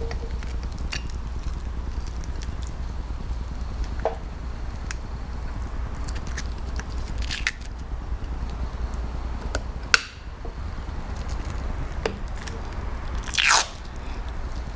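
Light clicks and scrapes of small parts being handled, over a steady low hum. A sharp click comes about ten seconds in, where the hum drops, and a louder rustling scrape comes near the end.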